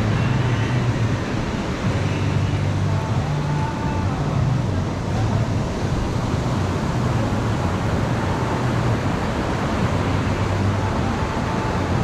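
Steady wash of ocean surf on the shore mixed with wind noise, over a low hum that comes and goes.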